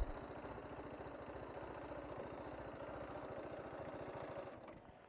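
TVS Apache RR 310's single-cylinder engine idling with an even, fast pulse, then stopping a little before the end as the bike is parked.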